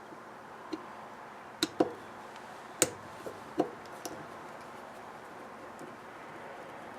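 A handful of light, sharp clicks and knocks, about seven over four seconds, from hands working the top and bottom halves of a carburetor apart.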